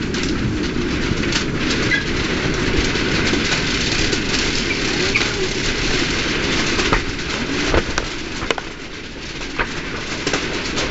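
Steady din of a crowded exhibition hall, with faint voices in the mix and a few sharp clicks and knocks near the end.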